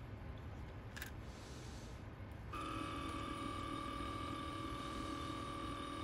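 A faint click about a second in, then a steady electronic tone of several pitches that starts about two and a half seconds in and holds without change.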